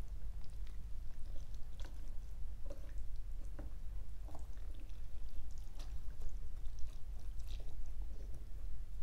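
Wooden chopsticks tossing rice noodles, herbs and fish cakes in a glass bowl: soft wet squishing with scattered light clicks against the glass, over a low steady hum.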